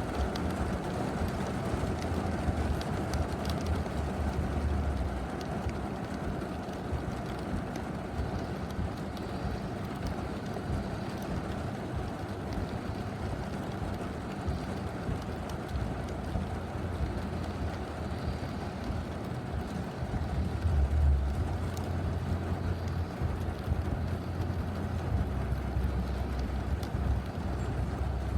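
Steady rain, an even hiss, with wind buffeting the microphone now and then as a low rumble, strongest in the last third.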